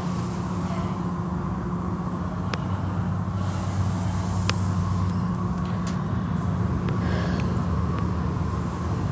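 Automatic tunnel car wash machinery running: a steady low hum from its motors and pumps under an even hiss of water and foam spraying onto the car. A couple of sharp ticks come through, the clearest about halfway through.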